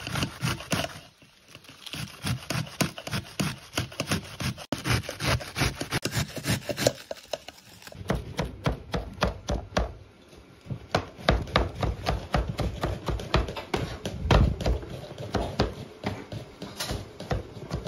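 Cabbage being grated on a stainless steel box grater, rapid rasping strokes. A little past halfway through it gives way to a knife chopping red onion on a cutting board, a fast run of knocks.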